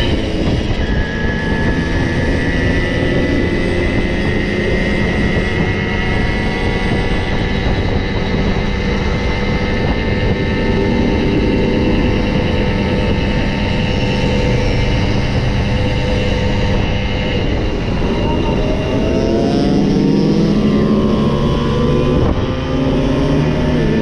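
Simson 50cc single-cylinder two-stroke moped engines running under way, several engines at different pitches at once over a heavy low rumble. Near the end the engine pitch climbs and falls as the throttle is worked.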